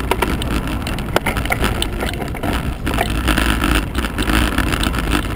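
Wind rushing over the microphone of a handlebar-mounted camera on a fast road descent: a steady low rumble, with frequent sharp clicks and rattles from the bumps in the road.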